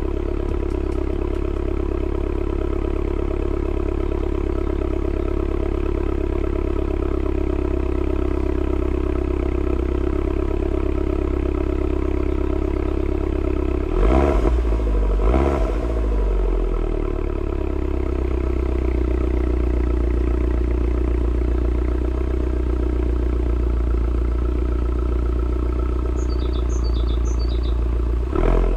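Mini John Cooper Works exhaust at a steady idle, blipped twice in quick succession about halfway through, each rev rising and falling back to idle, with another short rev right at the end.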